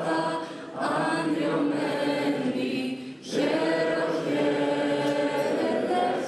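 A national anthem sung by a woman at a podium, with the standing crowd singing along in long held notes.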